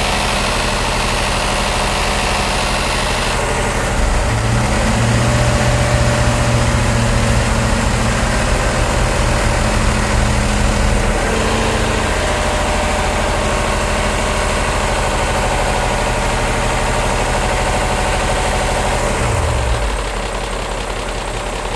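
BMW E39 M5's S62 V8 idling with a ticking noise that the owner ties to a fault in the bank 1 VANOS. The engine note gets louder and changes pitch about four seconds in, shifts again about halfway through, and drops and quietens near the end.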